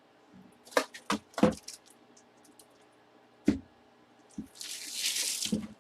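Trading cards and packaging being handled on a table: a few sharp taps and clicks, another tap a little later, then about a second of hissing rustle near the end.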